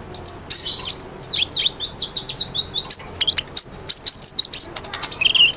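Olive-backed sunbird (kolibri ninja) singing energetically: a fast, unbroken twitter of sharp high chirps and quick rising and falling trills.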